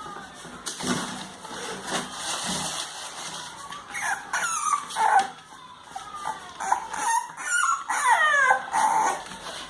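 Month-old English bulldog puppies whimpering and yipping: short, high cries that slide down in pitch, coming in clusters from about four seconds in.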